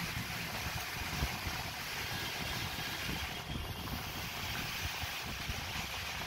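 Steady background noise: a low, flickering rumble under an even hiss, with no distinct tool or metal sounds standing out.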